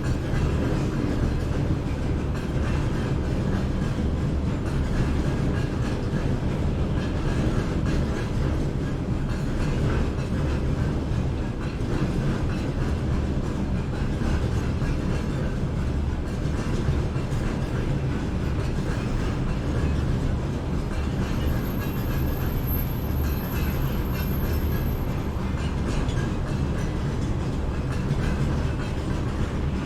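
A train running along the tracks: a steady noise, strongest in the low range.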